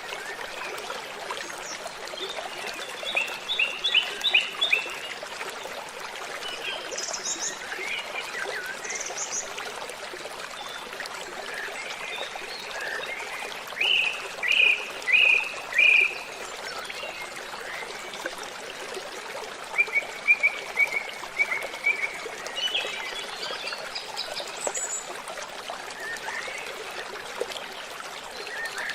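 Waterfall's steady rush of water, with birds singing over it in short runs of chirping notes; the loudest is a run of four notes about halfway through.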